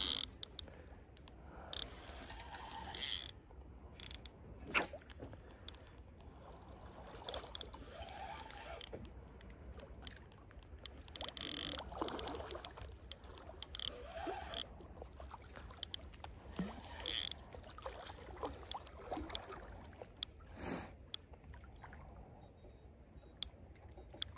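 Faint, irregular handling noises as a freshly landed carp is dealt with: scattered clicks and knocks, with small splashes and drips of water.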